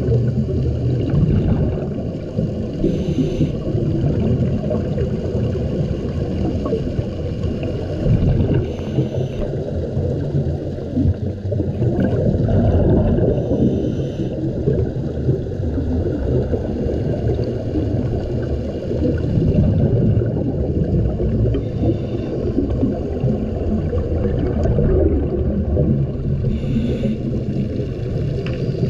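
Underwater sound through a dive camera housing: a steady, muffled rumble of water rushing past in strong current, with a short hiss of a scuba diver's exhaled regulator bubbles every several seconds.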